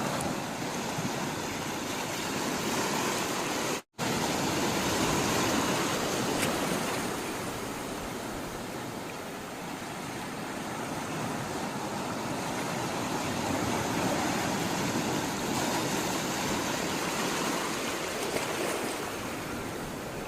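Sea water rushing and washing in a steady noise that slowly swells and eases. It cuts out for an instant about four seconds in.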